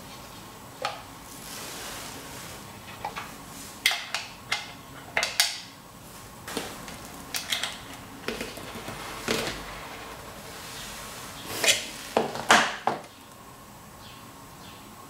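Small metal parts (threaded rod, nuts, ring magnet) being fitted into the base of a hard plastic tub by hand: scattered clicks, taps and clinks of metal against plastic, with a cluster of louder knocks about three-quarters of the way through.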